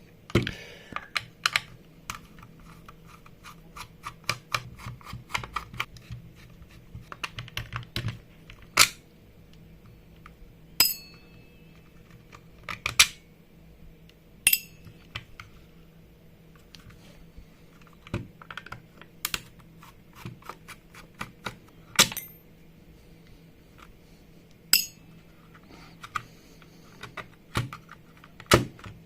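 A screwdriver working the small screws out of a plastic instrument case (a Kimo MP 200 pressure meter): runs of quick light ticking and clicking, with a dozen or so sharper clicks and small metallic clinks, a few of them ringing briefly.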